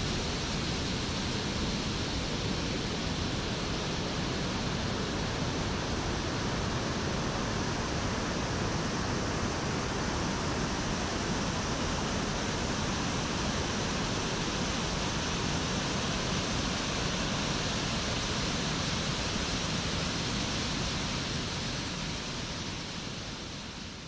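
Steady rush of a wide, low waterfall pouring over rock ledges into a pool, fading out near the end.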